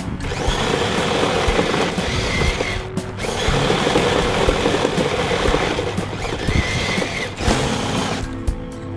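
Electric drive motors and gearbox of a large remote-control snowcat whining as its tracks drive it over snow, heard up close from the top of the vehicle. The drive cuts out briefly about three seconds in and settles to a lower, steadier hum near the end.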